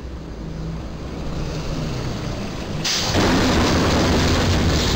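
Box delivery truck's roof striking and scraping along the steel crash beam of a low railroad bridge: a sudden loud crunching scrape about three seconds in that keeps grinding, over the truck's engine rumble.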